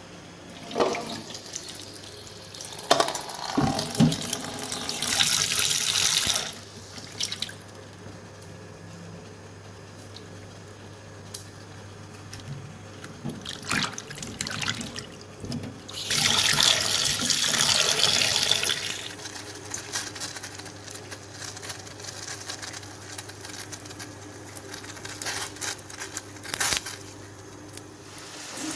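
Tap water running into a bowl in two spells, about three seconds in and again about sixteen seconds in, each lasting a few seconds. Between them come hands splashing in the water and small clicks and knocks.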